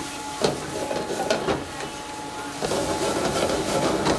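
Goose pieces frying in hot oil in a pan over a high flame, sizzling, with a metal ladle scraping and clanking against the pan a few times. It grows louder a little past halfway.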